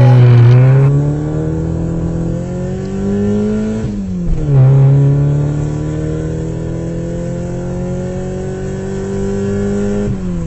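Motor vehicle engine accelerating through the gears. Its pitch climbs steadily, drops sharply at a gear change about four seconds in, then climbs again and drops once more near the end.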